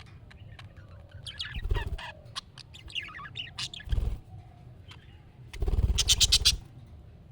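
Budgerigar chattering and warbling: short chirps, quick trills and clicks, with a rapid run of clicking notes about six seconds in. Low thumps come at the loudest moments, about two and four seconds in and under the click run.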